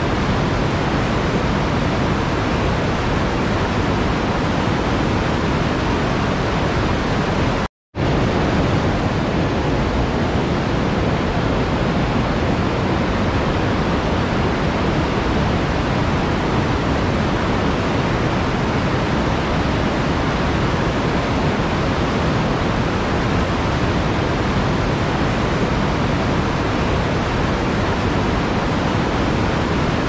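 Whitewater rapids of a fast mountain river rushing over boulders: a steady, dense rush that cuts out for an instant about eight seconds in, then carries on unchanged.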